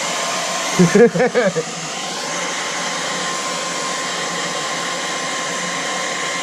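Hand-held blow dryer running steadily, blowing hot air onto a car badge to soften its adhesive, with an even hiss and a thin steady whine. A short voice cuts in about a second in.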